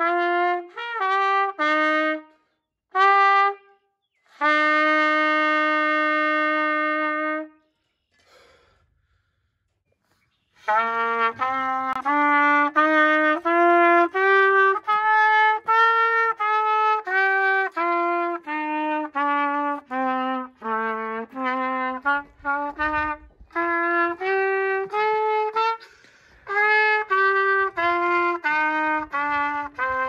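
Solo trumpet playing: a few short notes and one long held note, then after a pause of about three seconds a long run of separate notes moving up and down.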